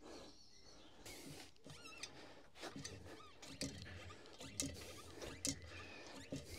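Faint scattered clicks and light knocks with a few short high squeaks, from a Renault Zoe traction battery being jacked and nudged into line under the car.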